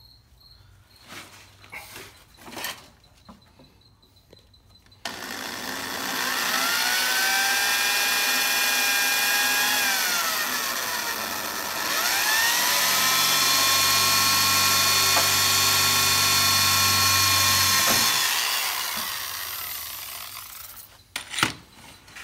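Power drill driving screws into a fiberglass fairing panel, running in two long stretches of about five seconds each. Its whine rises as it speeds up, drops briefly between the runs and falls away as it stops.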